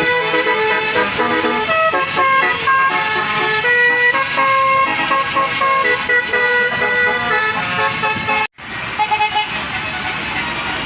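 Indonesian 'telolet basuri' bus horn playing a tune of stepped notes, loud and clear. About two-thirds of the way through the sound cuts out sharply, then the horn and bus noise carry on less clearly.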